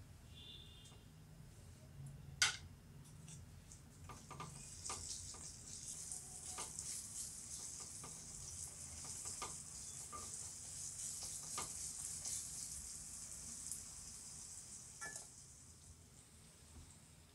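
Banana slices sizzling in hot ghee and roasted semolina in a kadai, stirred with a wooden spatula that scrapes and clicks against the pan. A single sharp knock about two seconds in, then a steady sizzle from about four seconds that fades away near the end.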